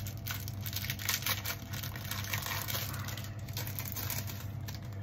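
Clear plastic wrapping crinkling and rustling in the hands as a replacement iPod battery is handled and unwrapped: a run of small, irregular crackles.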